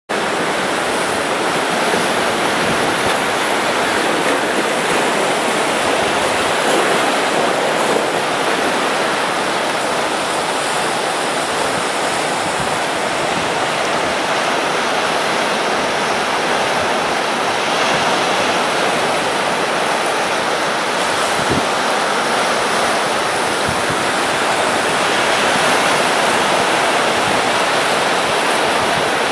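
Sea waves breaking on a flat rocky shore, with seawater washing and foaming through a channel in the rock shelf: a steady rushing surf that swells slightly now and then.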